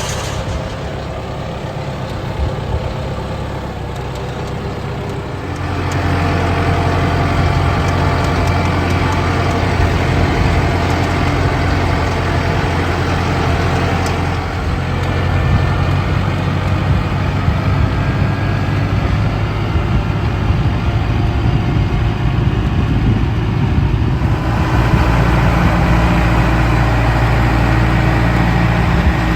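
Kubota M7060 tractor's four-cylinder diesel engine running steadily, stepping up in loudness about six seconds in and shifting pitch again near the end, as with changes in engine speed or load.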